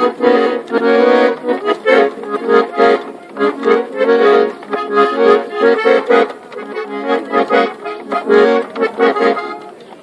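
Chromatic button accordion playing a tune: melody notes over a held lower accompaniment, with a pulsing rhythm.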